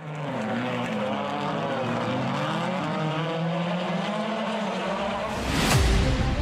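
Rallycross Supercar Mini engine at race pace, its pitch rising and falling as the car accelerates and lifts. Near the end a loud sweeping whoosh drops into a deep low boom.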